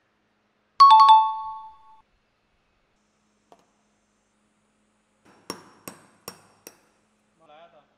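A single bright ringing ding about a second in that dies away over roughly a second. A few seconds later come four sharp clicks of a thin metal tool tapping on the bottom of an upside-down ceramic mug, then a faint scrape.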